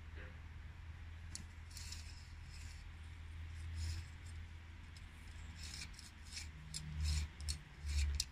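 Old hand-wound steel tape measure being handled: its metal tape scraping against the round metal case and a series of light metallic clicks, more frequent in the last few seconds, over a steady low rumble.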